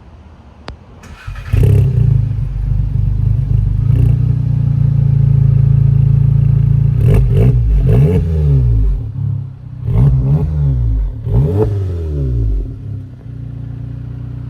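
Volkswagen Mk7's 2.0-litre turbocharged four-cylinder with an APR cat-back exhaust, warm-started: it cranks and catches about a second and a half in, and the idle flares high and holds. It is then blipped in several quick revs before settling to a lower idle near the end. A deep, tame tone with the exhaust valves closed.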